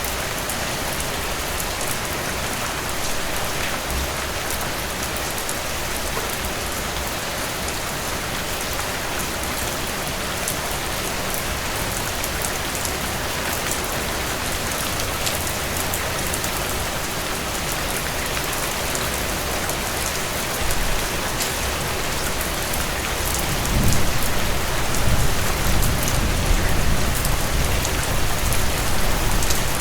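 Heavy rain falling steadily in a dense, even hiss of drops. In the last several seconds a deeper low rumble swells in and the sound grows louder.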